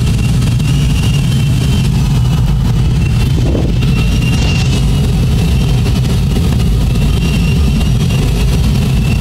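Steady rush of airflow in an ASK 21 glider's cockpit in flight, with the variometer's high tone coming and going, the sign that the glider is climbing in lift.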